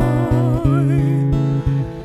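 Tenor voice holding a long note with vibrato over plucked acoustic guitar accompaniment; the held note fades about a second in while the guitar goes on picking low notes.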